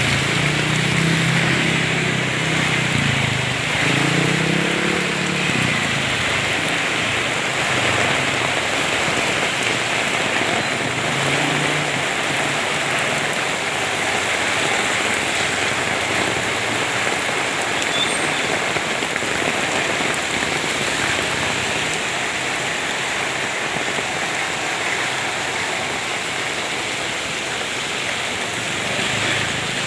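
Steady rain falling, an even hiss that holds throughout, with a low pitched sound underneath during the first several seconds.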